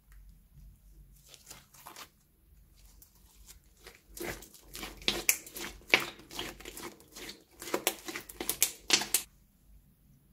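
Slime being squeezed in a plastic piping bag: a short crackle about a second in, then a dense run of sticky crinkling clicks from about four seconds in until it stops near nine seconds.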